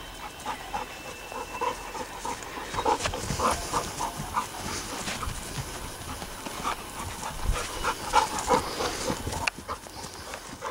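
Young Alaskan Malamute panting while running and playing, in short uneven breaths.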